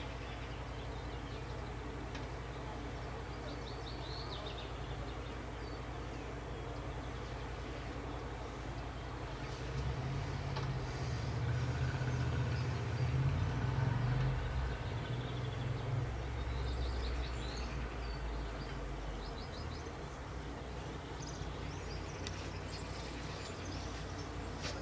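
Outdoor ambience: a steady low rumble that grows louder for several seconds in the middle, with faint bird chirps now and then.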